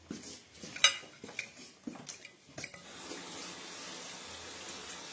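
Dishes and cutlery clinking, with one sharp ringing clink about a second in, then a steady hiss from about three seconds in.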